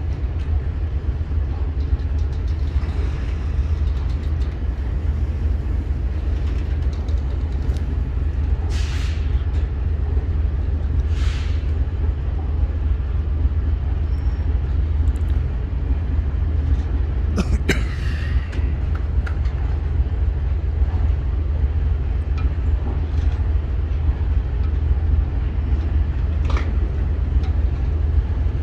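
Indian Railways sleeper-class passenger coaches rolling past, a steady low rumble of wheels on rail, with a few short hisses and a sharp clank about seventeen seconds in.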